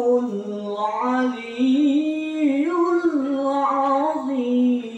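A man's solo voice chanting in the melodic Quran-recitation (tilawah) style. It holds long notes that rise and fall in ornamented turns, with a short break near the end.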